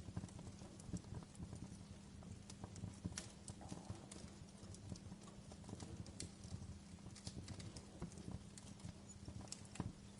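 Wood campfire crackling faintly, with irregular small snaps and pops, several a second, over a low steady rumble.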